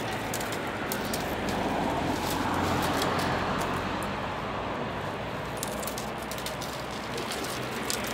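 Dry reed canes crackling and ticking as they are bent and woven into a basket, over a broad rushing background noise that swells for a few seconds and fades again.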